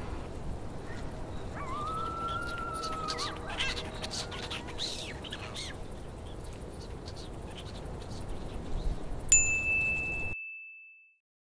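Cartoon sound effects over a steady hiss of background ambience. A high whistle rises and falls about two seconds in, followed by a few short chirps. About nine seconds in a single bright ding strikes and rings on alone after the background cuts off.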